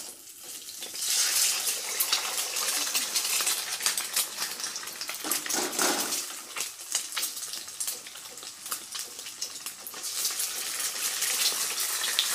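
An egg frying in hot oil in a steel wok, a steady crackling sizzle that starts about a second in as the egg goes into the oil.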